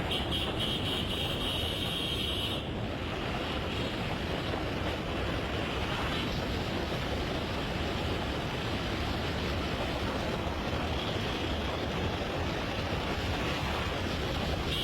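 Steady rushing noise, with a high, shrill steady tone over it for the first two and a half seconds that then cuts off suddenly.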